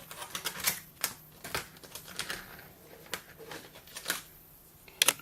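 Light, irregular clicks and taps of plastic Play-Doh playset pieces being handled on a tabletop, with a sharp double click near the end.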